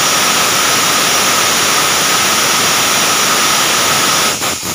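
Mini portable borewell drilling machine running while drilling: a loud, steady hissing whir with a faint high whine, which drops out briefly near the end.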